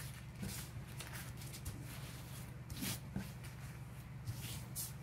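Crumpled rice paper, softened by kneading with lotion, rustling in short bursts as hands smooth it flat, over a low steady hum.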